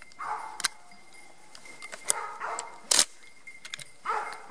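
Hunting dogs barking on a wild boar drive, a few separate barks, with short sharp cracks between them that are the loudest sounds.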